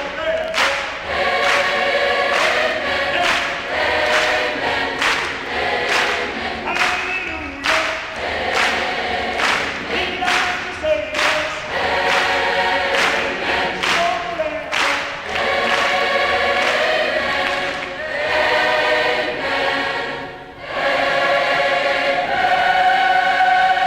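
High school choir singing a sacred song about Easter, many voices in harmony, with a brief dip about twenty seconds in and then a long held chord near the end.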